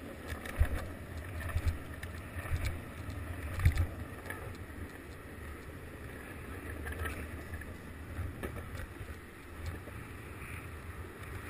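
Longboard wheels rolling fast over rough asphalt: a steady low rumble with sharp knocks as the wheels cross cracks and seams. The knocks come thickest in the first four seconds, and the ride is smoother after that.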